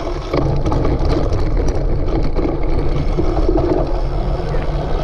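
Wind rushing over the microphone of a camera riding along on a cyclocross bike in motion, a steady heavy rumble with small knocks and rattles from the ride.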